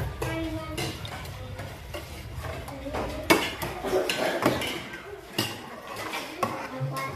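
Metal spoons clinking and scraping on ceramic plates as several children eat, with a sharp clink about three seconds in the loudest.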